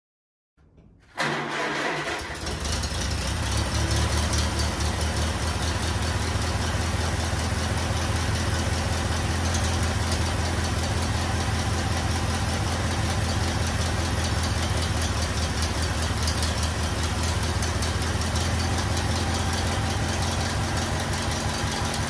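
An engine starts about a second in, then runs steadily with an even low rumble.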